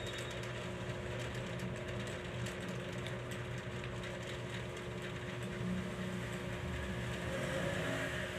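A steady low mechanical hum with a constant tone, and scattered light clicks and taps over it.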